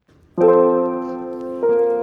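Background piano music: a soft chord struck about a third of a second in and left to ring, then a new chord near the end.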